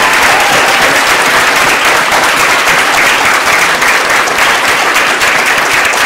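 A roomful of people applauding: dense, steady clapping from an audience.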